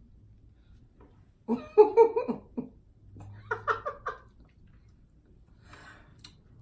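Laughter in two short choppy bouts, the first about a second and a half in and a weaker one about three and a half seconds in.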